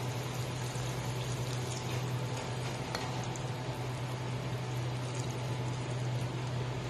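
Chicken pieces simmering in brown sauce in a frying pan, with a few light clicks of a spatula against the pan and plate, over a steady low hum.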